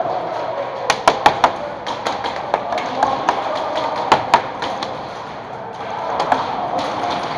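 Irregular sharp taps and cracks of airsoft fire in a plywood-walled indoor arena: gun shots and BBs striking the wooden walls, several in quick clusters around the first and fourth seconds.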